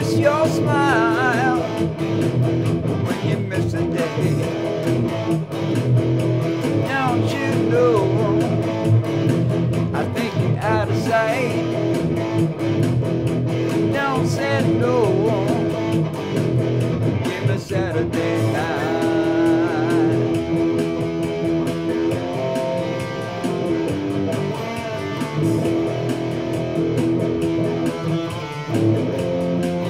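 Electric guitar being played: lead lines with bent, wavering notes over sustained chords.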